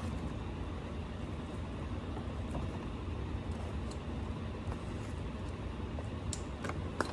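Steady low background hum. Near the end come a few light clicks as plastic trim pieces are handled and fitted.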